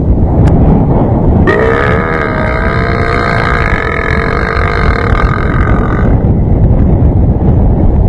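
A man's long, drawn-out burp, one wavering pitched belch starting about a second and a half in and held for about four and a half seconds. A steady low rumble runs under it throughout.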